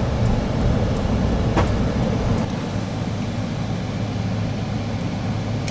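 Car driving along: a steady low rumble of road and engine noise, with a few faint ticks.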